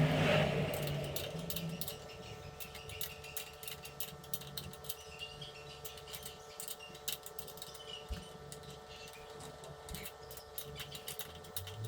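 Scattered light clicks and taps from hand tools and parts being handled during motorcycle front-wheel work, over a steady hum, with a louder burst of handling noise in the first second or two.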